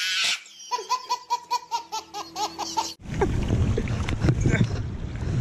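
A baby laughing: a run of short, quickly repeated giggling laughs that cuts off suddenly about three seconds in. Then wind rumbling on the microphone, with water washing against the bank.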